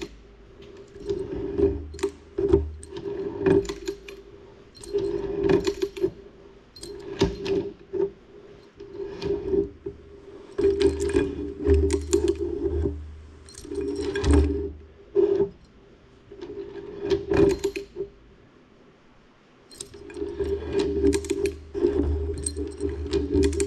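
Chain wrench working a hydraulic ram's gland head in a bench vise: the chain links clink and rattle against the steel, with repeated clicks and knocks as the wrench is pulled and reset. Stretches of rasping and grinding come as the head is turned tighter against its packing, with a short lull near the end.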